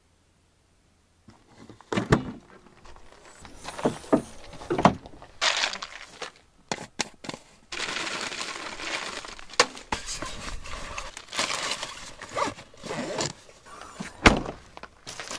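Nuts rattling out of a plastic jar into a plastic zip-top bag, with the bag crinkling, amid scattered clicks and knocks of packing at a vehicle's open rear. There is a sharp knock near the end.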